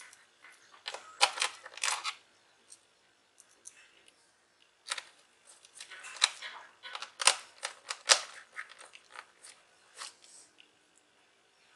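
Small screwdriver driving screws into an Acer Aspire E15 laptop's plastic bottom cover: irregular clicks and scraping ticks in clusters, busiest about a second in and again from about five to ten seconds in.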